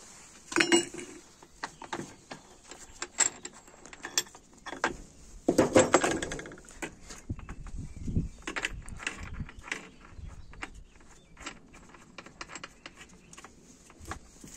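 Metal clinks, taps and scrapes as an angle grinder's disc is changed by hand: the old disc and its locking nut come off and a flap disc is fitted and screwed on. The loudest clatter comes about half a second in and again around six seconds in.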